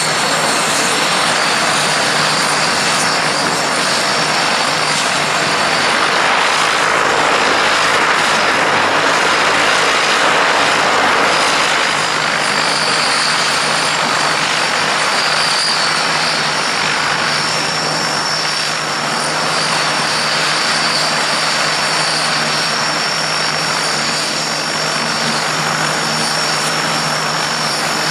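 Breguet Atlantic's twin Rolls-Royce Tyne turboprop engines running steadily while the aircraft holds on the runway. The propellers give a continuous rushing drone with a high turbine whine, swelling slightly for a few seconds near the middle.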